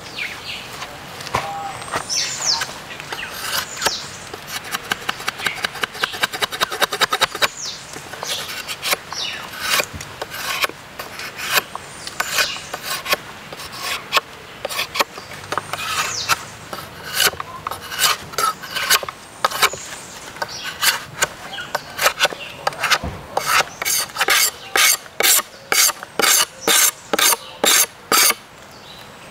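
Large knife blade scraping and shaving a bamboo shaft, in repeated rasping strokes. A quick run of short strokes comes a few seconds in, and near the end a steady run of about two strokes a second.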